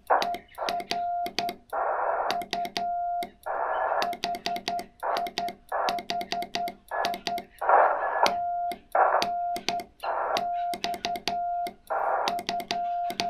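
Morse code from a ham radio transceiver: a steady mid-pitched CW tone keyed in dots and dashes, with bursts of band-noise hiss between the characters.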